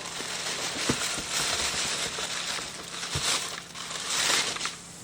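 Packing material being handled and unwrapped, crinkling and rustling in two louder spells, with a couple of faint knocks of parts being moved.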